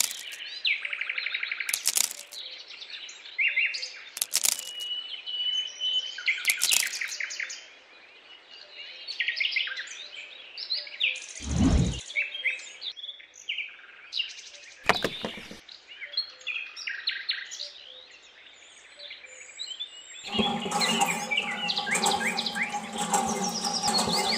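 Songbirds chirping and calling throughout, broken by a few sharp clicks and one duller thud about halfway through. Background music comes in near the end.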